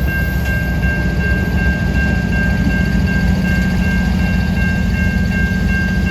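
A level-crossing warning bell ringing steadily and repetitively over the low, steady drone of a CN freight train's diesel locomotives.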